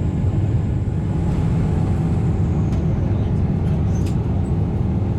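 Steady low rumble of a Boeing 777-200ER's GE90 engines heard inside the passenger cabin, with a faint high whine that fades out about halfway through and a few faint clicks.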